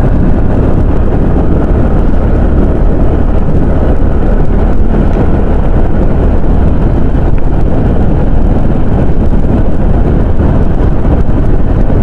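Wind rushing over the microphone of a rider's camera on a moving motorcycle, with the motorcycle's engine running underneath. A steady, even noise that does not change.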